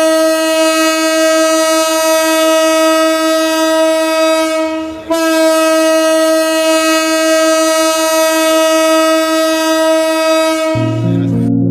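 Train horn sounding two long, steady single-note blasts, the first about five seconds and the second about six, with a brief gap between them. Music begins near the end.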